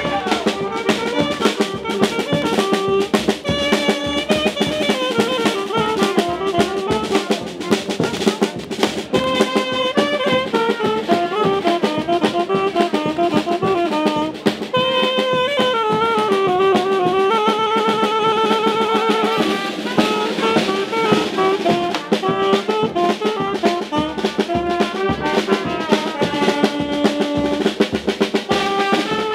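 A brass-and-drum band plays a tune: trumpet, saxophone and a low brass horn carry the melody over a steady beat on bass drum and snare drum. A rapid trill comes a little past the middle.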